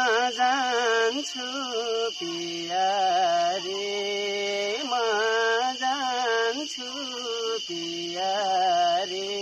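Nepali folk song: a held, wavering melodic line in phrases of a second or two, with pitch glides and no drumbeat, over a steady high-pitched hiss.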